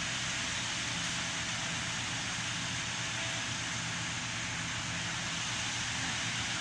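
Land Rover LR4 engine running at idle: a steady low hum under an even hiss.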